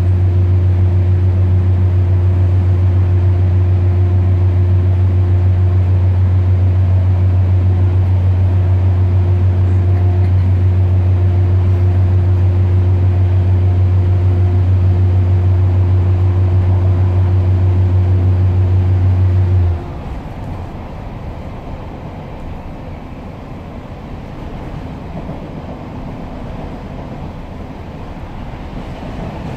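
Inside a Class 142 Pacer railbus: the loud, steady, low drone of its underfloor diesel engine under power, stopping suddenly about twenty seconds in. After that only the rumble of the wheels running on the rails remains.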